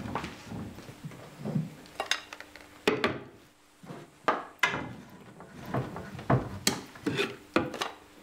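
Wooden drawer and cupboard being rummaged through: a scattered run of sharp wooden knocks, clatters and scrapes as things are taken out.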